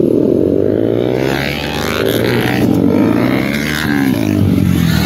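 Several sport motorcycles revving and pulling away one after another, their engine notes overlapping and sliding up and down in pitch.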